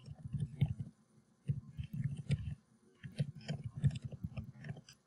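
Typing on a computer keyboard: quick, irregular key clicks in short runs with brief pauses.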